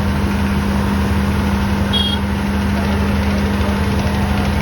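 An engine running steadily, with a constant low hum. A brief high chirp sounds about two seconds in.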